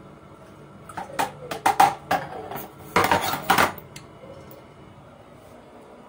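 Clinks and knocks against a glass blender jar as cut gulaman (gelatin) pieces are tipped onto the ice inside: a scattered run of knocks from about a second in, then a denser clatter about three seconds in.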